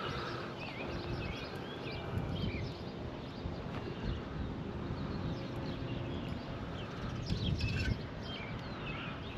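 Wild songbirds chirping and calling repeatedly, with wind rumbling on the microphone and gusting louder twice.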